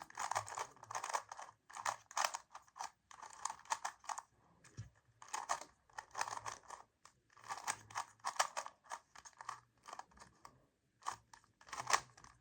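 Magnetic GAN 3x3 speedcube being turned fast during a solve: quick flurries of plastic clicking and clacking with brief pauses between them.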